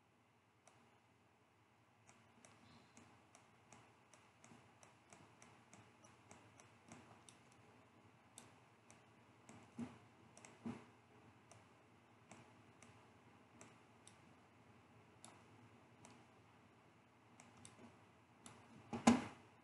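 Faint computer mouse clicks, irregular single clicks about one or two a second over a soft hiss, with a fuller, louder noise just before the end.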